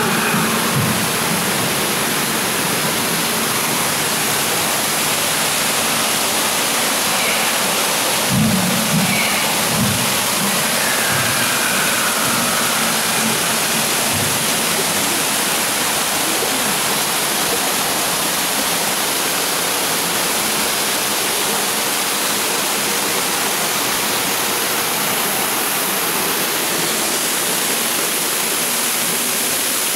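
Artificial waterfall pouring onto rockwork and into a pool, a steady rush of falling, splashing water heard close up.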